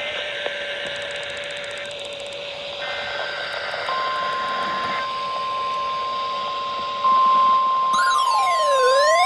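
NOAA weather radios picking up a Required Weekly Test over static hiss. About four seconds in the 1050 Hz warning alarm tone comes on as one steady tone, louder from about seven seconds. Near the end a radio's own alert starts sweeping up and down like a siren.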